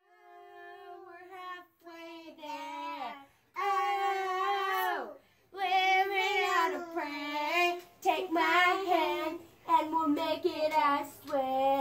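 A young girl singing a song unaccompanied, phrase by phrase with short pauses between lines. It starts faint and gets louder from about three and a half seconds in.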